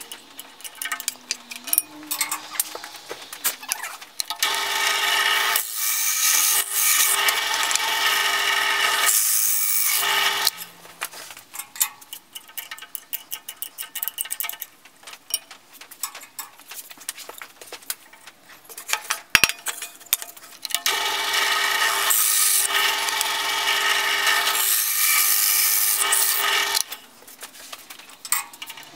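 A screwdriver scraping and prying packed wood out of a bi-metal hole saw, with rasping and clicking. Twice a drill press runs steadily for about six seconds, once near the start and once in the second half, while the scraping goes on.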